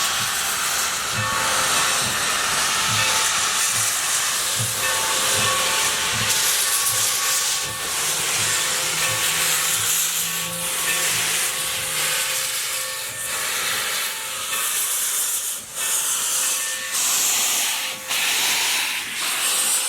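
Steam locomotive hissing steam, with a regular low thumping about twice a second that fades out about twelve seconds in.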